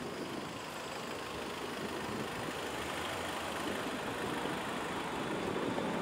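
Steady street traffic noise, with a motor vehicle's engine running and no single sharp event standing out.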